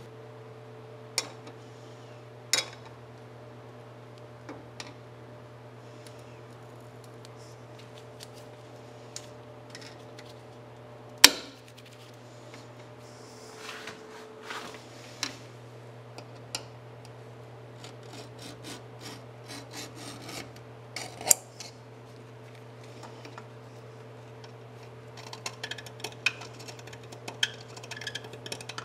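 Hand tools knocking and ticking against the steel frame of a pickup truck, in scattered single clanks with one loud knock about eleven seconds in and a run of quick light ticks near the end, over a steady shop hum.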